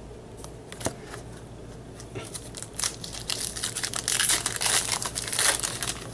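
Plastic wrapper of a baseball card pack being torn open and crinkled. There are a few light crackles at first, then thick, continuous crinkling through the second half.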